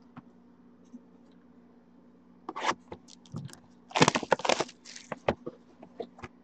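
Clear plastic shrink wrap torn and crinkled off a sealed trading-card box, in short bursts about two and a half seconds in and loudest around four seconds in, followed by scattered clicks and rustles.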